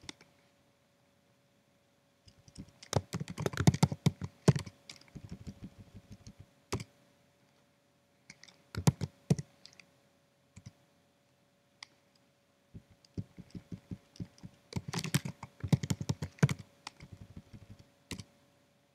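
Typing on a computer keyboard: several bursts of rapid keystrokes separated by pauses, the busiest stretches about three seconds in and again from about thirteen to eighteen seconds.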